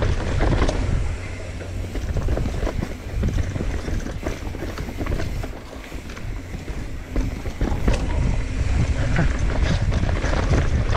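Mountain bike riding down a dirt trail: a continuous rumble of tyres over dirt and roots with many quick clicks and knocks from the bike rattling over the bumps, and wind buffeting the microphone.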